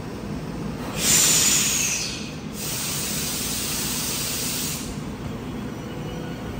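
Compressed air hissing from a Tokyo Metro 05 series train standing at the platform just before it pulls out: the air brakes releasing. A loud burst about a second in carries a faint falling whistle. It gives way to a steadier, quieter hiss that cuts off a couple of seconds later, over a low steady hum from the train.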